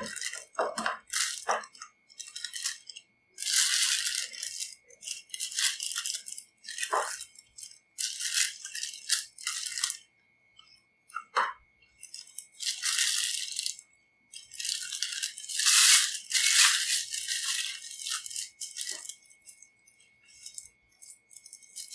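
Plastic piping bag crinkling and rustling in irregular bursts as royal icing is spooned into it and worked down. A faint steady high-pitched tone runs underneath.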